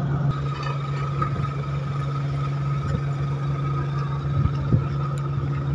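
Large passenger ship's engines running as it comes alongside the quay: a steady low hum with a faint steady whine above it. A short knock sounds about three-quarters of the way through.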